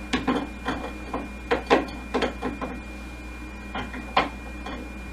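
Test tubes knocking and clinking in a rack as the rack is set down on a table and the tubes are moved about: a run of irregular light knocks, most in the first two and a half seconds, with a few more near the end.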